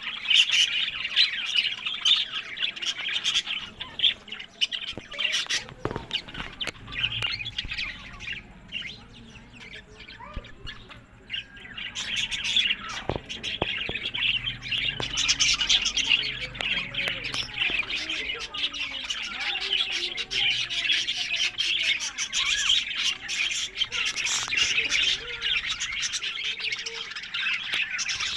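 Budgerigars chattering and chirping in a continuous high warble, with a quieter stretch about a third of the way through before the chatter picks up again.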